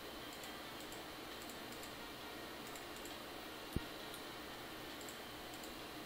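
Faint computer keyboard and mouse clicks over a steady background hiss, with one sharper click a little under four seconds in.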